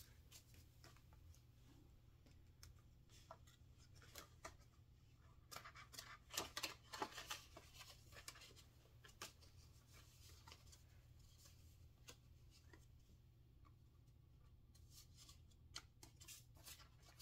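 Faint rustling and crinkling of paper dollar bills and a clear plastic binder pocket as a stack of bills is handled and slid in, with a busier flurry of rustles about six seconds in.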